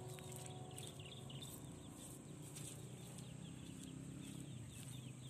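Faint farmyard chickens clucking, with short high chirps.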